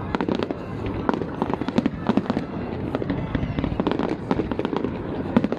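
Fireworks going off in a dense, continuous barrage: rapid overlapping bangs and crackles with no pause.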